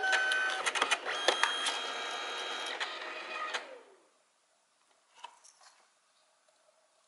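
Liene Amber M200 dye-sublimation photo printer ejecting a finished 4×6 print: its motor whirs with rapid clicks and rattles, then winds down with a falling whine about three and a half seconds in. A few faint paper-handling clicks follow as the print is taken out.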